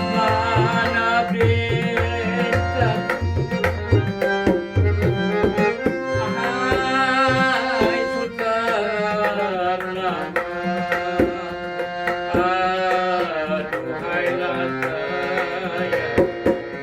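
Malay ghazal music: tabla drumming, busiest in the first few seconds, under a wavering melodic line.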